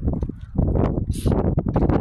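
Wind buffeting the phone's microphone: a heavy, uneven rumble that eases for a moment near the start, with a short hiss about a second in.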